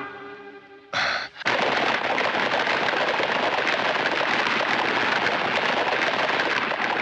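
Many horses galloping: a dense, steady clatter of hooves that starts abruptly about a second and a half in, just after a brief loud burst. Music fades out at the start.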